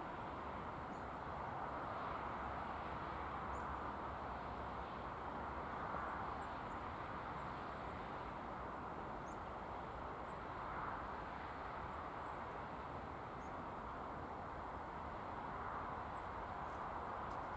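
Steady outdoor background noise: a hiss that swells gently every few seconds, with a few faint high ticks.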